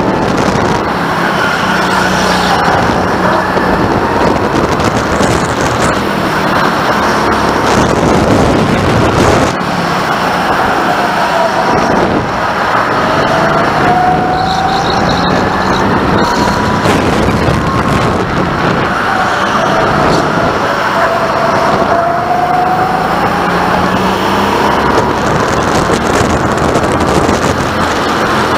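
Go-kart motor heard onboard at racing speed, running loud, its pitch rising and falling again and again with the throttle through the corners, over a steady rushing noise.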